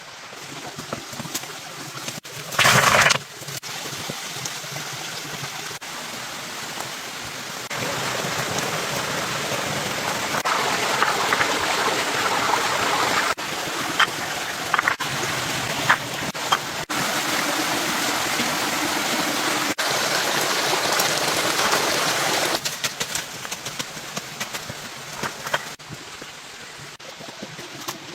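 Steady rushing noise of running water, its level stepping up and down at several abrupt cuts, with a short loud burst about three seconds in and a few sharp clicks.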